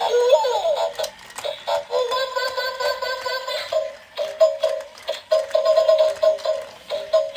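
Battery-powered toy playing an electronic tune through its small speaker: sliding chirps at the start, a held chord, then a run of short repeated notes, with light clicking throughout.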